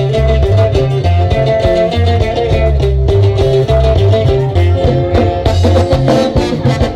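A live band playing upbeat Latin dance music, with a steady bass beat under guitar and held melody lines.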